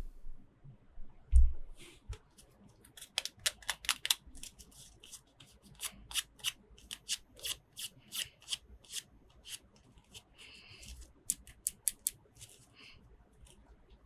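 Hands handling plastic toy parts and packaging: a run of sharp, irregular clicks and crinkles, with a dull thump about a second and a half in.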